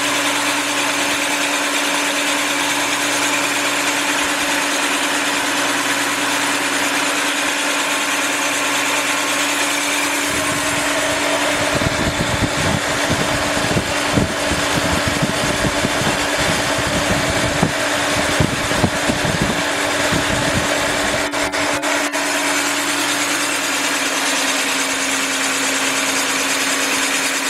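SIP Hydroptic 8 jig borer running with its boring bar cutting a cylinder of an AMC/Jeep 258 inline-six block: a steady machine hum with an even hiss. An irregular low rumble joins in from about ten seconds in and stops about twelve seconds later.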